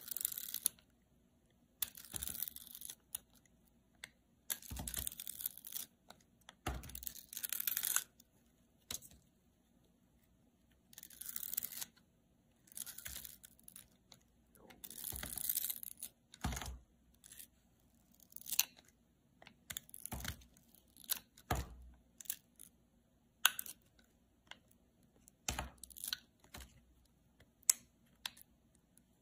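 A thin, glittery film peeling off a smooth oval surface, in a series of short tearing pulls of about half a second to a second and a half each, with small clicks between them.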